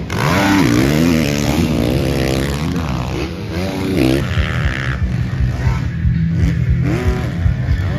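Motocross bike engines revving hard on a dirt track, their pitch climbing and dropping again and again as the throttle is opened and shut.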